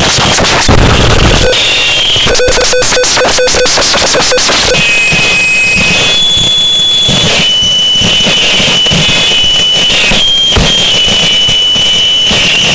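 Harsh noise music: a loud, dense wall of distorted noise with high, steady whining tones held for seconds at a time. There is a burst of heavy low rumble about a second in, and a fast stuttering passage a few seconds in.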